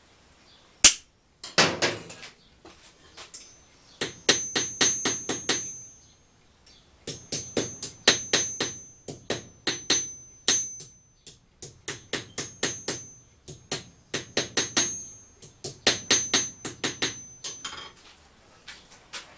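Hand hammer striking steel on an anvil in quick runs of about four blows a second, with short pauses between runs. Each blow is sharp and rings with a high metallic tone.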